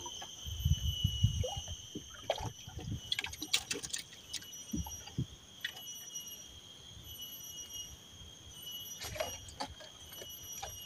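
Insects singing in a steady, high-pitched chorus, with scattered sharp clicks and knocks and a low rumble in the first couple of seconds.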